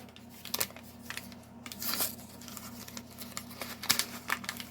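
Toy packaging crinkling and tearing as small blind-pack figures are unwrapped by hand, with irregular sharp crackles and clicks.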